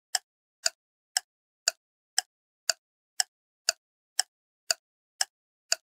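A steady ticking sound effect: short, sharp clicks about two per second, evenly spaced and equally loud, with silence between them, in the manner of a clock tick.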